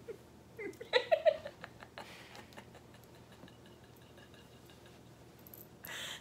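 A short burst of laughter, a few quick pitched bursts about a second in, followed by quiet room tone and a breathy rustle near the end.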